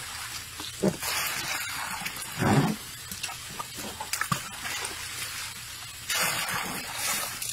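Water splashing and sloshing in a large plastic tub as a baby elephant plays in it with its trunk and feet, with a longer rush of water from a bucket being poured in about six seconds in. A few short low-pitched sounds come between the splashes, the loudest about two and a half seconds in.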